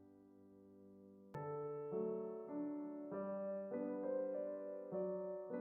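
Background piano music: a soft held chord fading away, then a slow melody of notes struck one after another from about a second in.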